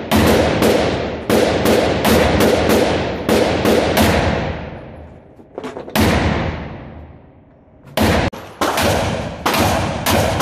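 A pistol fired rapidly on an indoor range, about ten shots in the first four seconds and one more about two seconds later, each shot followed by a long fading echo. From about eight seconds in, a shotgun fires a quick string of shots.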